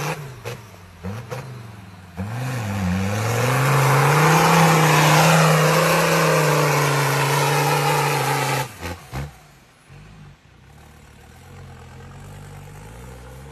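Lifted off-road 4x4's diesel engine revving in short blips, then held hard at high revs for several seconds as it churns through deep mud, with a heavy rush of spraying mud and water. About nine seconds in it cuts abruptly to a quieter engine running steadily, rising slightly near the end.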